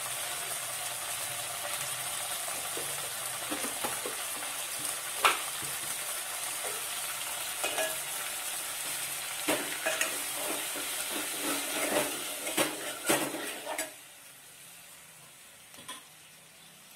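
Tomato pieces, green chillies and onion sizzling in oil in a metal pot, stirred with a steel spoon that clinks against the pot several times, most often in the second half. Near the end the sizzling drops away suddenly, leaving one last clink.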